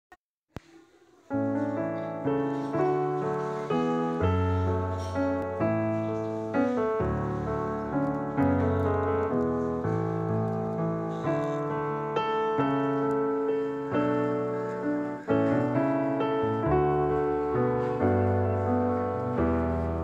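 Background piano music: chords and melody notes struck and dying away, beginning about a second in.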